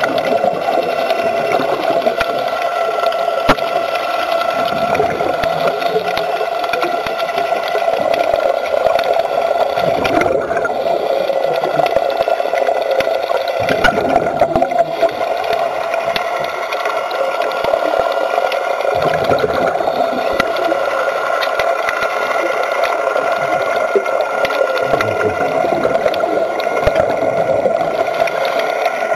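Underwater recording: a steady mechanical drone carried through the water, with the gurgle of a diver's exhaled bubbles.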